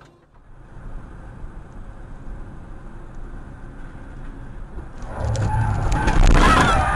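Steady road and engine noise of a car driving on an expressway, heard through a dashcam. About five seconds in it swells into a much louder, harsh rush of noise that peaks just before the end.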